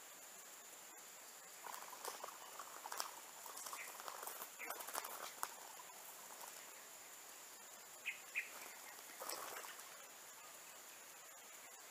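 Dry leaf litter rustling and crackling in short spells as a spotted dove walks and pecks on the ground. Two short, sharp, higher-pitched sounds come a third of a second apart, about eight seconds in.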